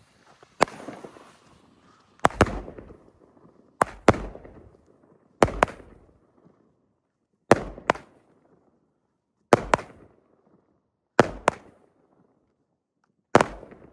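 Consumer firework cake firing one shot at a time, about every two seconds, eight in all. Each is a sharp bang, some doubled, trailing off in an echoing tail.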